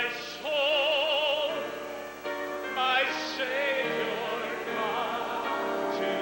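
Gospel hymn singing: a solo voice holds long notes with a wide vibrato over piano accompaniment, starting a new phrase about three seconds in.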